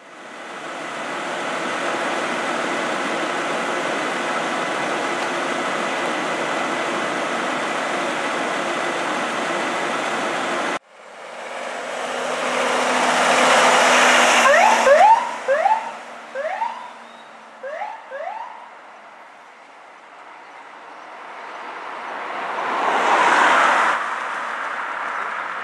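A fire truck's engine runs steadily and then cuts off abruptly. Next an LAFD ambulance pulls away: its engine rises, and its siren gives about six short rising chirps over a few seconds. Then the engine noise swells again as the ambulance drives off.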